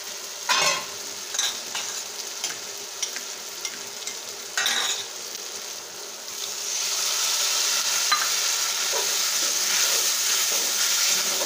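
Onion, garlic and red masala sizzling in hot oil in a metal kadhai, with a metal ladle clinking and scraping against the pan. About six seconds in, a liquid is poured in and the sizzling turns louder and denser.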